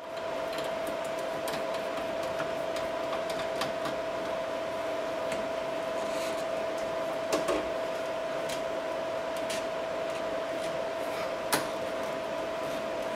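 A steady, even hum, with scattered light clicks and two sharper knocks, about seven and eleven seconds in, from hands working at a plastic washbasin drain trap.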